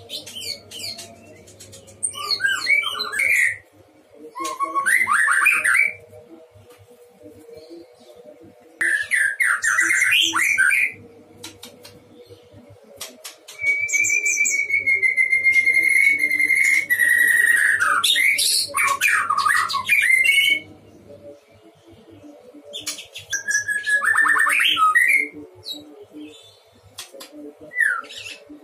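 White-rumped shama (murai batu) singing in separate bursts of varied phrases: clear whistles, fast high trills and harsh notes, with quiet gaps between. The longest phrase comes midway, opening on a held steady whistle before breaking into trills. A faint steady hum lies underneath.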